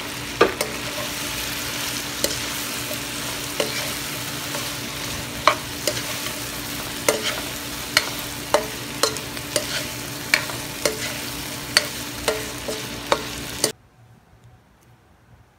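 Fried cauliflower pieces sizzling in oil in a non-stick wok as a wooden spatula stirs and tosses them, the spatula knocking against the pan in repeated sharp clicks. The sizzle and clicks cut off abruptly near the end.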